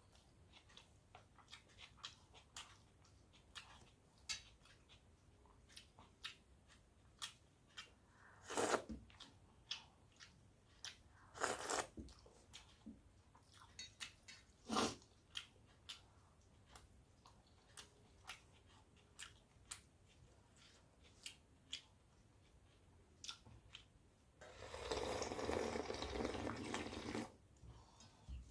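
A person eating panta bhat (rice soaked in water) with the hands: soft chewing and many small mouth clicks, with a few louder crunches. Near the end a steady noisy stretch lasts about three seconds.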